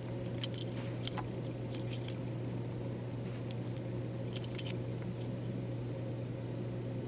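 A small die-cast toy car being handled: faint scattered clicks and taps, with a cluster of them about four and a half seconds in, over a steady low hum.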